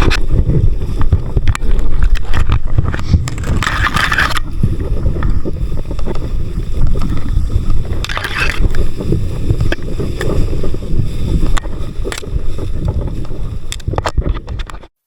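Wind buffeting the microphone, with scattered knocks and rustles and two brief hissing rushes about four and eight seconds in.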